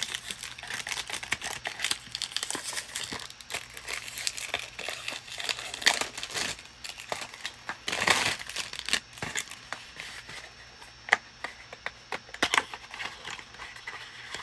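Clear plastic shrink-wrap crinkling and tearing as it is pulled off a boxed tube of shaving gel, with a few sharper crackles among the steady rustle.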